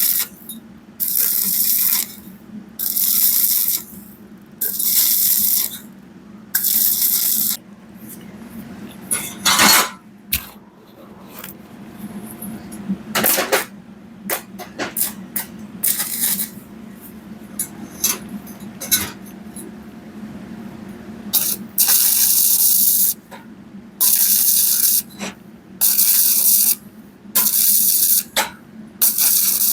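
Stick (arc) welding on thin round pipe with a 2.0 mm electrode at 80–90 A: the arc crackles and hisses in bursts about a second long, struck and broken again with short pauses between. In the middle the arc stops, and there are scattered clicks, taps and brief scraping sounds.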